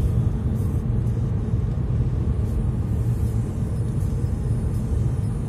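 Car driving at a steady speed: a constant low rumble of engine and tyre noise on the road.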